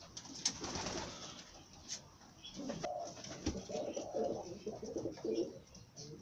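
Domestic pigeons cooing, repeated low throaty calls coming in one after another from about two and a half seconds in, after a brief rustle near the start.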